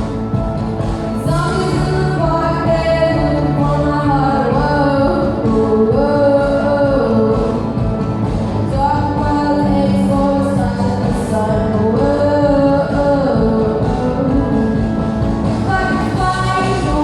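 A song: a voice singing a melody over steady instrumental backing.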